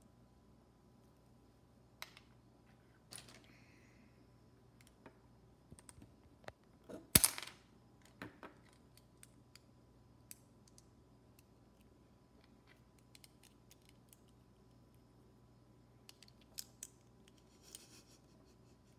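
Plastic Lego bricks clicking and clattering as they are handled and pressed together, in scattered light clicks, with one sharp, much louder click about seven seconds in.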